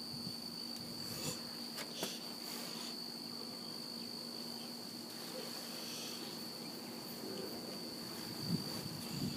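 Crickets trilling in one steady, unbroken high-pitched tone, with a few faint clicks and a soft breath from someone exhaling smoke.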